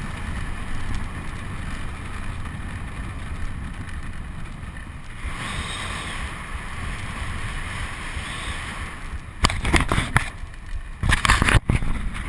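Wind rushing over the microphone of a bike-mounted camera, with tyre and road rumble, as a mountain bike descends a paved road at speed; a brighter hiss rises for a few seconds midway. Near the end, a run of loud knocks and scrapes on the camera itself.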